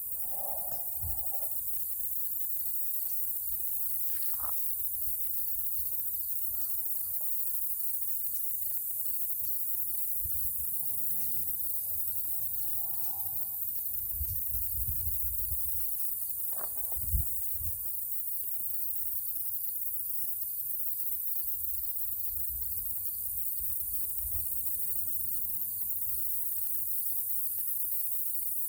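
Steady high-pitched insect chorus with a cricket chirping in an even, repeating rhythm, and a single short knock about seventeen seconds in.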